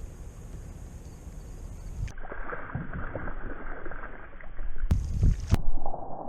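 Water lapping and splashing around a kayak, with a low rumble underneath. The sound turns abruptly muffled about two seconds in, clears briefly near five seconds, then turns muffled again.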